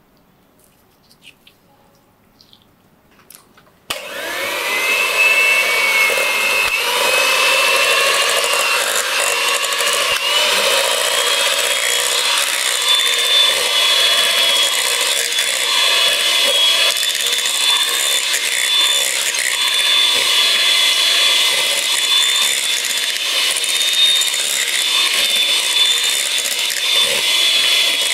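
A few faint clicks, then about four seconds in an electric hand mixer switches on and runs steadily, its beaters working cream cheese in a glass bowl. The motor's whine climbs over the first few seconds and then holds steady.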